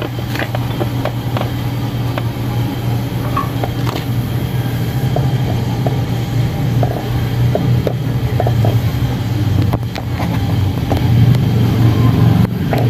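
Light metal clicks and taps of brake caliper parts and bolts being handled, scattered irregularly over a steady low hum.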